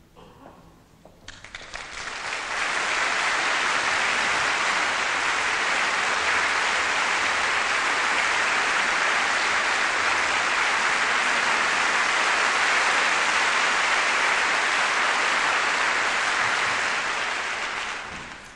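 Concert hall audience applauding, swelling in over a couple of seconds, holding steady, then dying away near the end. This is the welcome for the soloist and conductor before the concerto begins.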